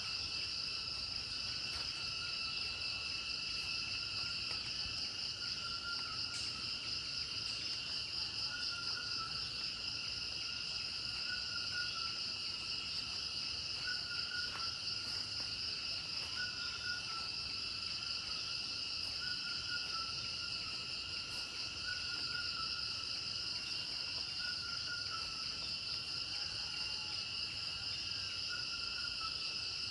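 Night chorus of insects such as crickets, a steady, finely pulsing high-pitched trilling, with a fainter, lower call repeating every second or two underneath.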